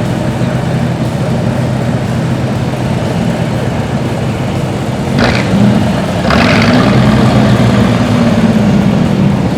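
Car engines running at low speed as cars drive in. About six seconds in, one engine grows louder, its pitch rising and then easing off.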